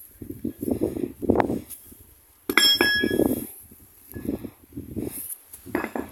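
Muffled rubbing and rustling from a handheld phone being moved around, with a sharp metallic clink about two and a half seconds in that rings briefly.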